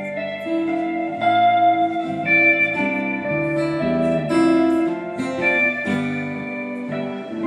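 Live band instrumental passage with no singing: guitars play a melodic line of held notes that change about every half second.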